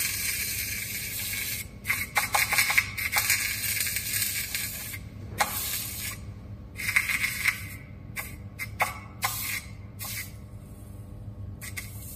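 Electric soldering iron melting solder wire against an aluminium bar: a hissing sizzle that comes and goes, with small clicks and scraping of the tip on the metal. The solder won't wet the aluminium.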